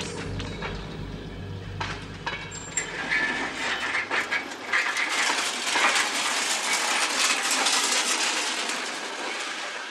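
Rail trolley wheels clattering along the track, a dense hissing rattle full of fine clicks. A low electronic drone from the film score underneath fades out about four seconds in.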